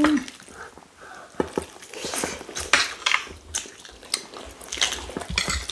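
Eating sounds: a spoon clinking and scraping against a plate in a series of short, sharp clicks, mixed with chewing.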